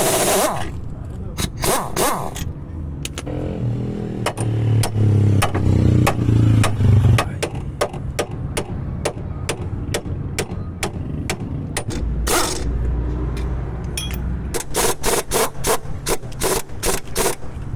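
A series of sharp knocks, about three a second, then a quicker run of knocks near the end, with voices and a low hum under part of it.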